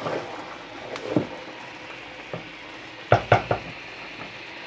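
Potato and eggplant chunks sizzling in a large metal pot, cooking in the liquid the eggplant has released, while a wooden spatula stirs them and scrapes the pot. A few sharp knocks of the spatula against the pot come about three seconds in.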